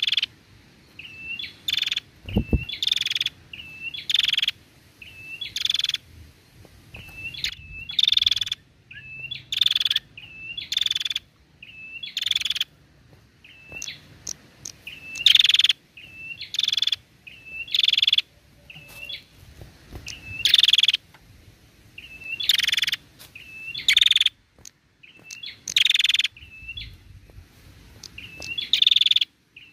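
A caged female prenjak calling without pause: a run of sharp, high chirps, about one or two a second, with softer hooked notes in between. A brief low knock sounds about two seconds in.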